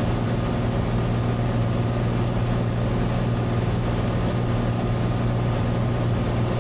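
Cessna 182's engine and propeller running steadily in cruise, heard inside the cabin as an even drone with a low hum.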